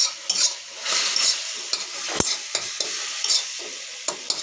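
Fried-down tomatoes sizzling in oil in a steel kadhai while being stirred, with short scraping taps of the utensil against the pan, one sharper knock about two seconds in.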